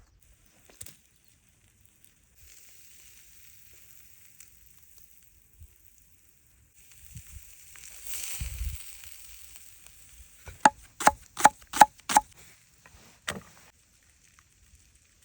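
Chicken kebab sizzling as it cooks, a faint steady hiss that swells briefly halfway through. Near the end come five sharp knocks in quick succession, about three a second, then one more.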